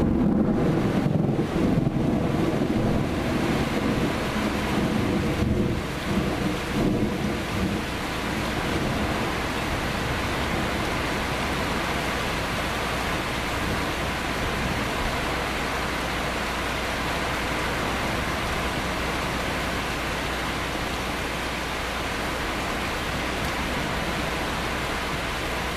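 Thunder rumbling over steady rain, the rumble dying away about eight seconds in and leaving an even hiss of heavy rain.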